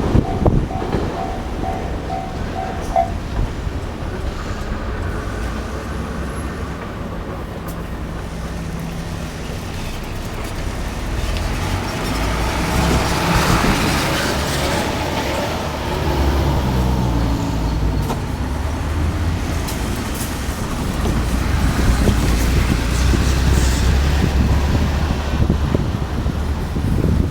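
Road traffic rolling over a level crossing: vehicles pass one after another with a steady rumble that swells and fades, one engine's pitch falling as it goes by. A level-crossing warning bell rings in a fast repeating pattern for the first few seconds and then stops.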